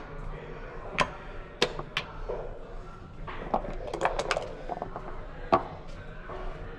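Backgammon play: sharp clacks of dice, checkers and the game clock's button, with a quick run of rattling clicks in the middle as dice are shaken and rolled, and one loud sharp click about five and a half seconds in.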